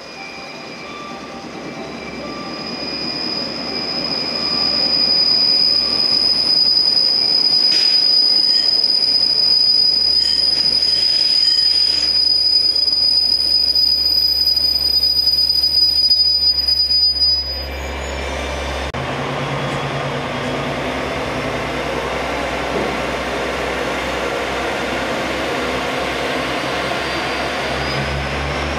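etSETOra diesel railcar pulling into the platform, its wheels giving a high, steady squeal under braking that grows louder and cuts off suddenly about two-thirds of the way through as the train stops. Its diesel engines then run on with a steady low drone.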